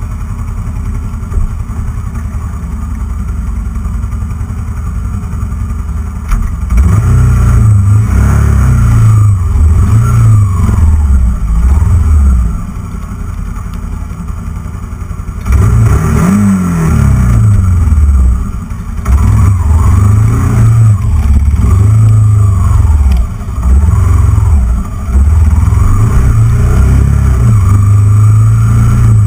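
Kawasaki KLR250's single-cylinder four-stroke engine idling, then pulling away with its revs rising and falling again and again. It drops back to idle for a few seconds midway, accelerates again, and settles to a steady run near the end.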